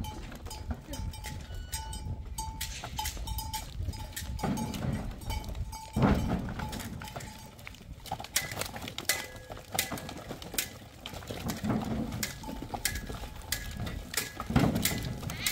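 A herd of goats moving over rubble and stone walls: many small clinks and clatters from hooves and bells, with short ringing tones and a few low goat calls.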